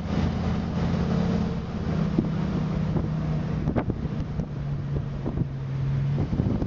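A motor vehicle's engine running as it drives, its pitch stepping down a couple of times, with wind buffeting the microphone.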